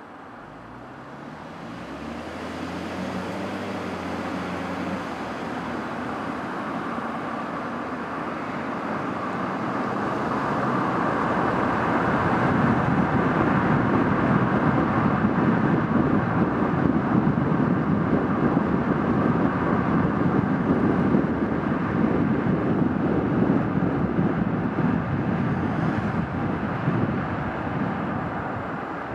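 A car pulling away from a standstill, its engine note climbing in the first few seconds, then steady tyre and road noise at cruising speed that grows louder about a third of the way in and eases a little near the end.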